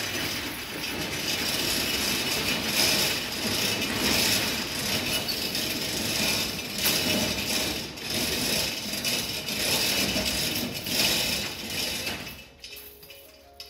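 Roll-up shop door being raised, its slats and mechanism rattling for about twelve seconds, swelling and easing as it goes, then stopping near the end.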